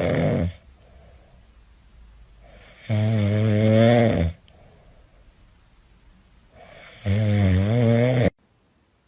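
Loud snoring: long, pitched snores about every four seconds, with quiet breaths between, cutting off suddenly near the end.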